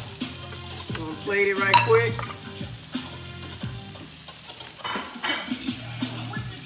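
Vegetables frying and sizzling in a skillet, with a spatula stirring and scraping against the pan; a few sharper scrapes come about five seconds in.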